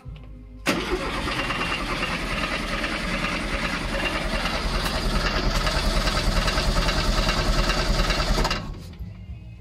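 VW Type 3's air-cooled flat-four engine on its first start attempt, heard at the tailpipe: it turns over with a fast, even pulsing beat for about eight seconds, then stops abruptly.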